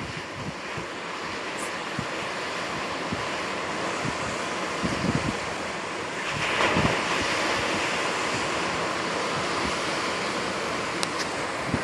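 Ocean surf breaking over rock ledges: a continuous rushing wash that swells loudest as a wave crashes about six to seven seconds in. Wind buffets the microphone with low thumps throughout.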